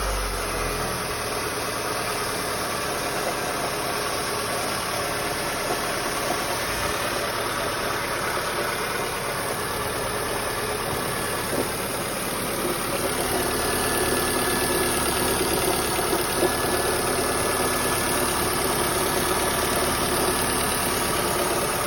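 Mitsubishi Lancer IX's 4G18 1.6-litre inline-four running steadily with the knock its owner cannot explain. The engine was recently fitted with new piston rings, valve stem seals, timing belt and water pump and is still being run in.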